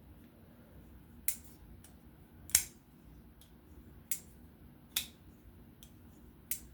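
Ferrum Forge Mini Arch Bishop folding knife being worked open and shut: about five sharp clicks, one every second or so, the loudest about two and a half seconds in, as the freshly cleaned blade snaps into and out of its lock.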